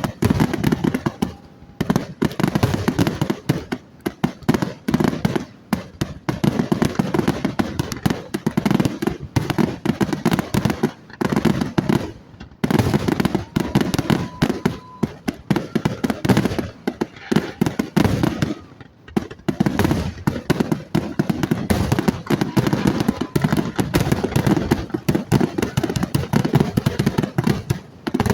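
Fireworks going off in dense, rapid volleys of cracks and bangs, broken by a few brief lulls.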